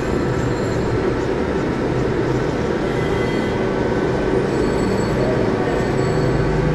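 Steady, fairly loud mechanical rumbling noise with a few faint steady tones running under it, easing off near the end.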